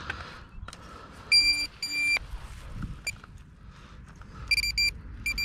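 Handheld metal-detecting pinpointer beeping as it finds metal in the dig hole. There are two short beeps about a second in, then near the end a quick run of beeps that runs into a steady tone as the probe closes on the buried object. A few faint knocks from digging sit underneath.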